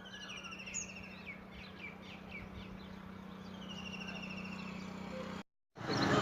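Wild birds chirping in repeated quick trills, over a steady low hum; the sound drops out completely for a moment near the end.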